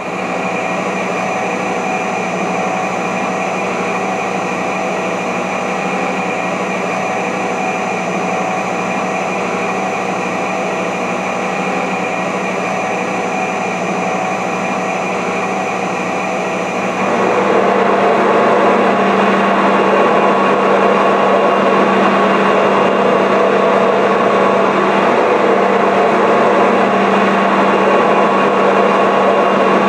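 Electric drive motors and gear reducers of a large welding positioner running steadily as the table tilts: a continuous mechanical drone with a hum under it, growing louder and fuller about seventeen seconds in.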